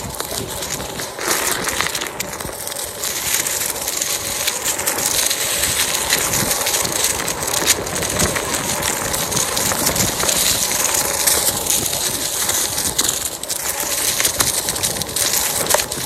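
Onewheel Pint's tyre rolling fast over dry fallen leaves on a dirt trail: a steady, dense crackle of many small clicks.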